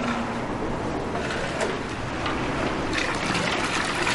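Liquid poured from an aluminium pot into a large copper halwa cauldron: a steady splashing hiss that grows louder about three seconds in.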